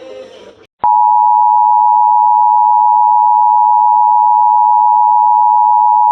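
Emergency Alert System attention signal: a loud, steady two-tone alarm that cuts in abruptly just under a second in, heralding a severe thunderstorm warning.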